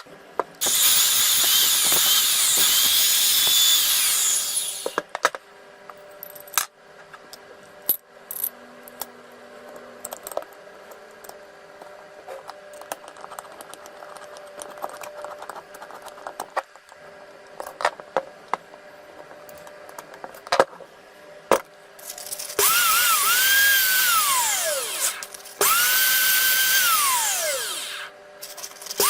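Makita 6016 electric drill motor run three times in short bursts. Each time it spins up to a steady high whine and winds down with a falling pitch when released. Between runs there are light clicks and handling knocks.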